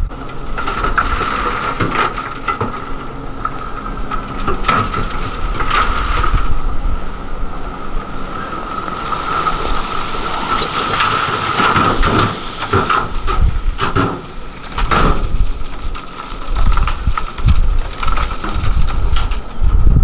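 Hyundai Trago 25-tonne dump truck tipping its load: soil and rocks slide and tumble out of the raised bed with repeated crashes and rumbling. A steady high whine from the truck runs under it.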